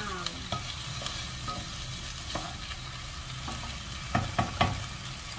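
Sliced okra sizzling as it stir-fries in a non-stick saucepan, stirred with a wooden spatula that scrapes and clicks against the pan. Three sharp knocks come about four seconds in.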